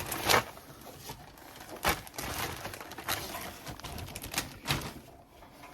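A few irregular knocks and clatters of items being handled and set down into a refrigerator and its plastic bins.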